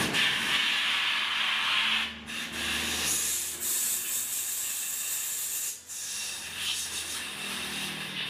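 Compressed air hissing through a tyre-inflator chuck into a motor scooter's rear tyre. It comes in long stretches that break off briefly about two seconds in and again near six seconds, as the chuck is lifted off the valve and pressed back on.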